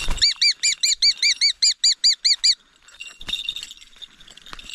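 A bird giving a rapid series of about fourteen sharp, high calls, about six a second, which stop about two and a half seconds in; then faint clicks and rustling.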